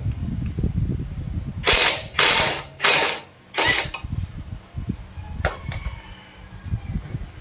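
Cordless impact wrench hammering in four short bursts, loosening the rear axle nut of an electric bike's hub-motor wheel.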